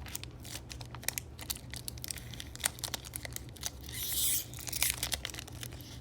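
A Pokémon Pop Series 5 booster pack wrapper crinkling and being torn open by hand, with many small crackles and a longer rip about four seconds in.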